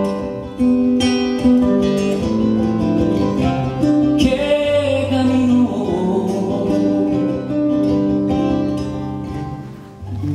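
Two acoustic guitars playing the closing bars of a folk song, picked notes ringing, dying down near the end.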